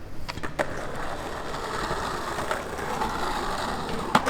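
Skateboard moving fast: a steady rushing noise, with a few clicks about half a second in and a sharp knock near the end.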